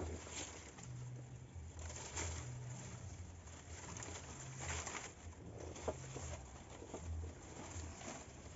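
Palm fronds rustling and scraping as they are pulled and woven into a shelter wall, with a few light clicks.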